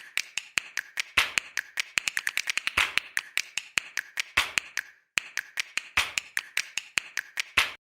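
A long series of sharp, irregular taps or clicks, at times coming several a second in quick runs, with a short pause about five seconds in.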